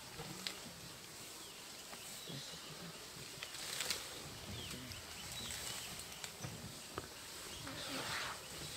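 Elephants feeding in bush: occasional snaps and rustles of plants being pulled, over a faint steady high insect hum and a few short bird calls.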